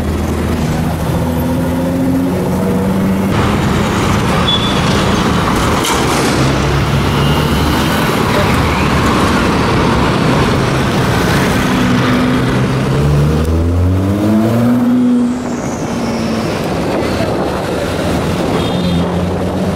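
Nissan GT-R R35's twin-turbo V6 running loud through a Kline Inconel exhaust in traffic. Its revs step up and down, then climb in one long rising pull about two-thirds through before dropping off suddenly.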